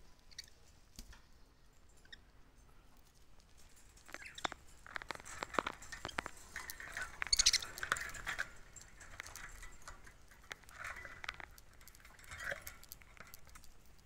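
Budgerigars pecking and crunching at seed and fresh greens in a cage: a run of small, quick clicks and crackles, busiest in the middle of the stretch.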